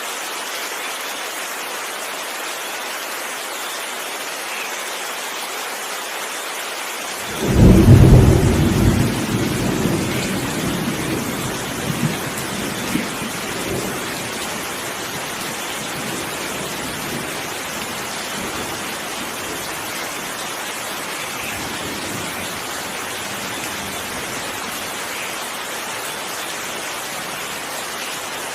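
Steady heavy rain hissing, with a clap of thunder about a quarter of the way through: a sudden loud low rumble that fades out over several seconds, with a couple of smaller crackles as it dies away.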